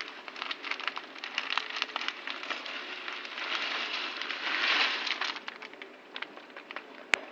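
Broken dry spaghetti shaken from a plastic packet into a pot of hot water, with the packet crinkling and many crackling clicks, thickening into a denser rush of pouring about three to five seconds in. A single sharp click near the end.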